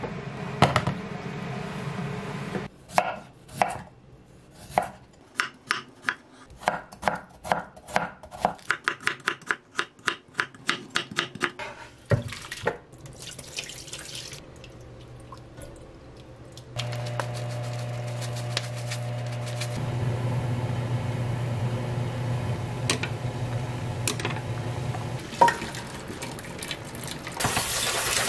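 A kitchen knife chops potato on a wooden cutting board in a long run of sharp strokes, coming quickest in the middle of the run. Then a tap starts running into a stainless steel pot in the sink with a steady rush. Near the end the water turns to a louder hiss as it sprays over julienned potato in a mesh strainer.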